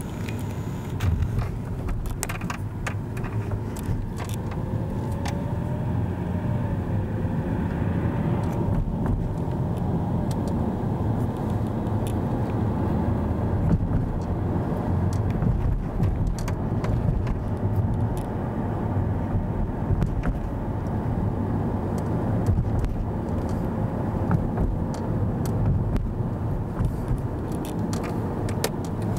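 Road and engine noise heard inside a moving car's cabin: a steady low rumble with a faint whine that slowly rises and falls, and scattered small clicks and rattles.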